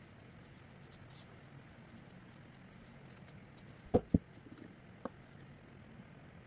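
Two sharp knocks in quick succession about four seconds in, like a hard object set or tapped down on a work surface, then a single faint click a second later, over faint room tone.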